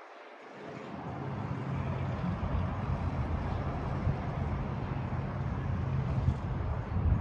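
Low, steady vehicle engine rumble, as of a car or traffic, swelling over the first couple of seconds and then holding.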